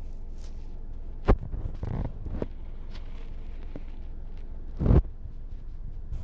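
Handling noise close to the microphone over a steady low rumble: a sharp click a little over a second in, a spell of rustling, and a louder rustling thump about five seconds in.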